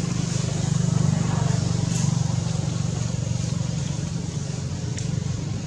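Steady low engine hum from an unseen motor vehicle, strongest in the first half, with a couple of faint short clicks.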